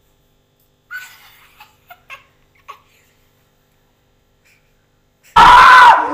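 Faint giggling in short bits a second or two in. Then, near the end, several men break into sudden, very loud shouting.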